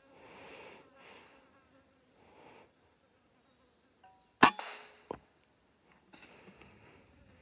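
A single airgun shot about four and a half seconds in: a sharp crack with a short ring after it, followed less than a second later by a second, softer click.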